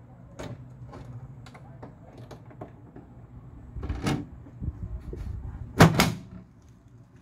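Plastic UV-blocking cover of an Anycubic Photon resin 3D printer being lowered into place: light clicks and rattles, a knock about four seconds in, then two sharp knocks close together near six seconds, the loudest, as the cover seats on the printer's base.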